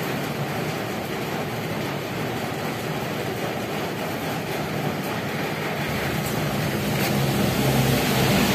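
Steady mechanical rumble from an unseen running machine, getting a little louder in the last couple of seconds.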